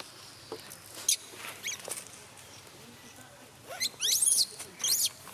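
Monkey screaming in distress: a few short, sharp squeaks, then two bursts of loud, shrill squeals that rise and fall in pitch near the end.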